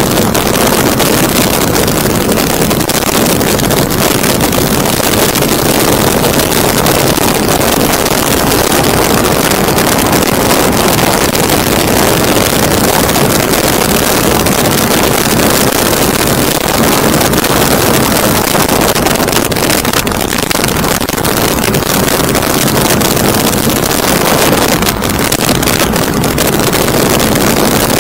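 Loud, steady drone of an aircraft in flight, with wind rushing over the microphone.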